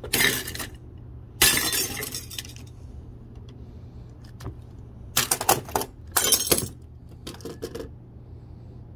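A glass coffee pot being smashed: about five separate crashes of shattering glass, the loudest about a second and a half in.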